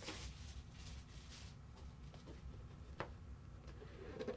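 Faint rustling of a cardboard collectible game pack being opened and its contents handled, with a single light click about three seconds in.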